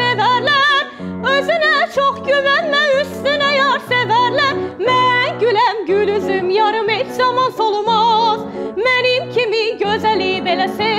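A woman singing in classical operatic style, a high soprano voice with wide vibrato, over an instrumental accompaniment of held low notes.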